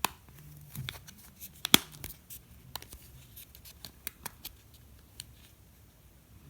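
iPhone 5s display assembly being pressed into its frame from the corners: a string of small, irregular plastic clicks and taps, the sharpest right at the start and a little under two seconds in, as its edge clips seat.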